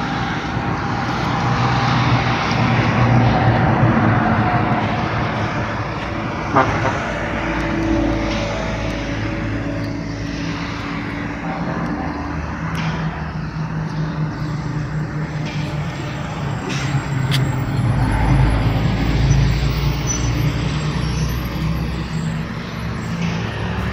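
A motor engine running, a low hum that rises and falls in pitch and swells twice, under a steady rushing noise, with one sharp click about six and a half seconds in.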